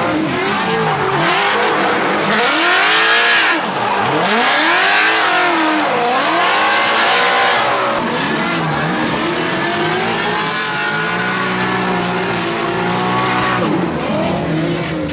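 Toyota 2JZ inline-six of a Nissan 240SX drift car, heard from inside the cabin, revving up and dropping back over and over every second or two while the car drifts. The tyres squeal throughout.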